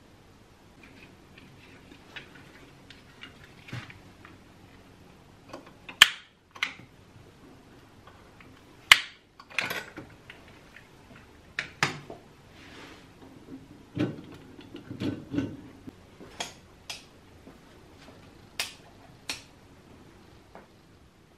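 A hurricane lantern being handled: about a dozen sharp metallic clicks and clinks, scattered and uneven, the loudest about six and nine seconds in.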